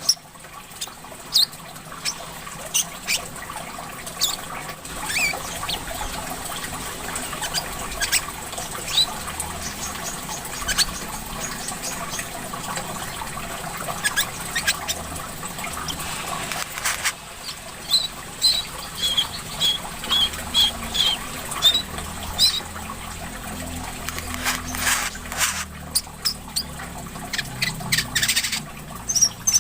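Sunbird chirping and twittering in short, sharp high calls, with a quick run of repeated notes about two-thirds of the way through, over steadily trickling water.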